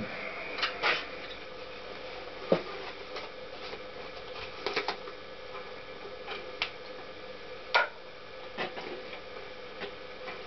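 Scattered light clicks and knocks of tools and engine parts being handled at a workbench, with two sharper knocks about two and a half and eight seconds in, over a steady hum.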